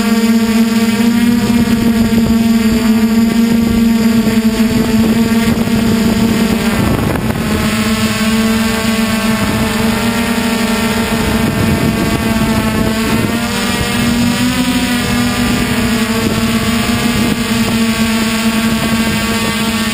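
DJI Flame Wheel F450 quadcopter's four brushless motors and propellers running in flight: a loud, steady hum with a high whine above it. There is a short gust of noise about seven seconds in, and the pitch wavers briefly about three quarters of the way through.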